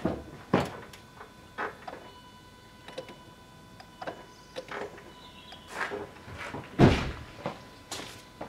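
Land Rover Discovery 3's fuel system being primed as the ignition is cycled: a string of sharp clicks and knocks, the loudest just before the end, over a faint steady high whine from about a second in, as the new in-tank low-pressure pump pushes fuel up to the engine.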